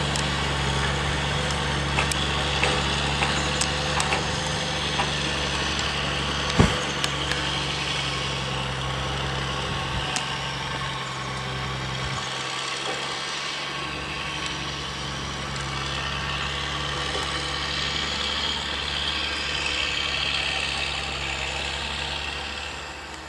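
Loaded log truck driving away: a steady low engine hum with a few sharp knocks and rattles from the rig over the first seven seconds, the loudest about six and a half seconds in. The low engine note falls away about halfway through, leaving a fainter rumble that drops off near the end.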